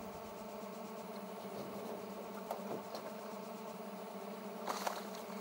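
A steady buzzing hum, with a few faint ticks partway through and a brief clatter near the end.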